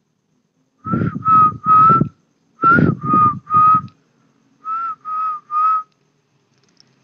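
Whistling: three runs of three short, level notes, each run about a second long, loud and close, the first two runs with a breathy low rumble under them.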